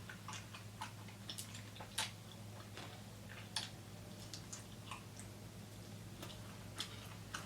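Close-miked chewing of chicken wings: many irregular, crisp mouth clicks and smacks, over a steady low hum.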